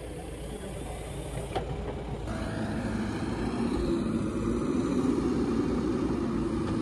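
Diesel engine of a Mahindra Earthmaster SX90 backhoe loader running, growing steadily louder from about two seconds in. A single click sounds about a second and a half in.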